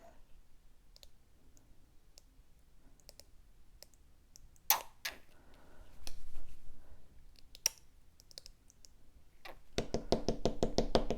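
Glue being poured from one bottle into a small glue bottle, with the bottles and caps handled: scattered faint clicks and two sharper clicks, then a quick run of ticking near the end.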